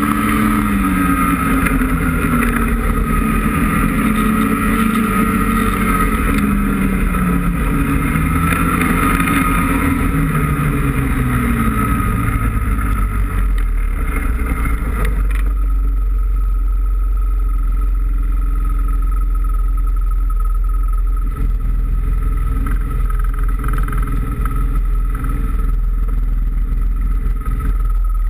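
2017 Ski-Doo snowmobile's 850 E-TEC two-stroke twin running, its pitch rising and falling with the throttle for about twelve seconds. It then drops to a low, steady run as the sled slows almost to a stop.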